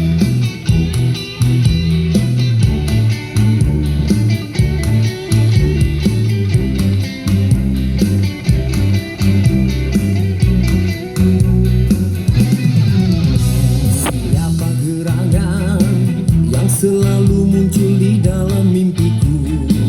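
Band music led by guitar over a stepping bass line and steady beat, an instrumental passage between sung verses of a Malay pop ballad.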